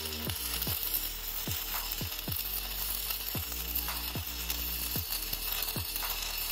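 Electric arc welding on steel: the arc's steady crackling sizzle. Underneath runs background music with a steady beat of about two falling low thumps a second.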